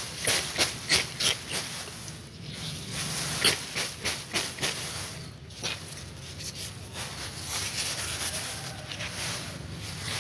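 Rice stalks being threshed by beating them with bamboo: a run of sharp strikes, about three a second, with a hissing rustle of straw and grain. The strikes give way to a steadier rustle in the second half.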